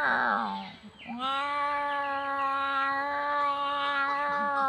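A man's voice imitating a kitten's yowl as it fights over a fish bone. The first drawn-out yowl trails off about a second in, and a second long, steady yowl is held for over three seconds.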